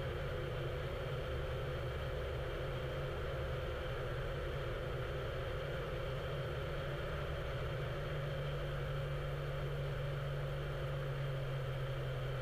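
Cessna Skylane's engine and propeller droning steadily on final approach, heard through the cockpit intercom audio as a low hum, a little stronger in its lowest tone after about eight seconds.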